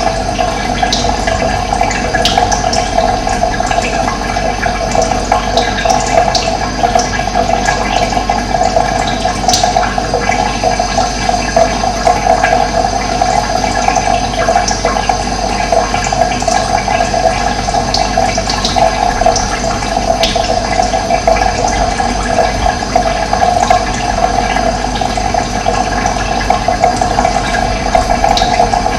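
Running water, a steady, unbroken rush and gurgle of flowing water, with a few faint short bird chirps scattered through it.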